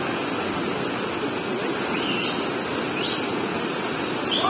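Steady rush of a fast, muddy river churning in whitewater around a concrete bridge pier.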